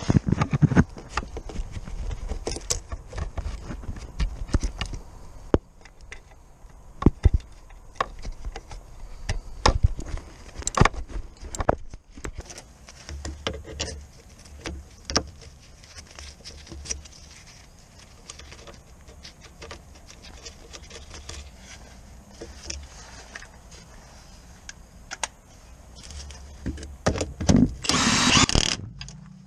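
Scattered metal clanks and knocks of tools and parts being handled under a car. Near the end, a power tool on a long socket extension runs for about a second and a half on a bracket nut.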